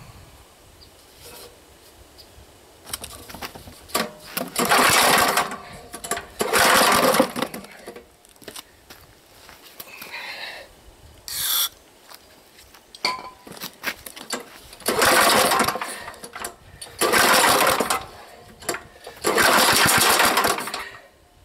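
Old Niagara 3,000-watt gas generator's small engine being pull-started again and again: about five pulls, each firing it into a second or so of running that dies out. The engine is short of fuel, with only a little gas funneled into the carburetor.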